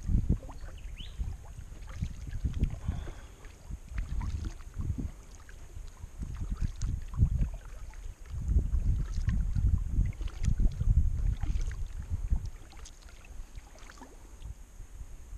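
Kayak being paddled, paddle strokes splashing in the water, with wind buffeting the microphone in gusts that swell and fade.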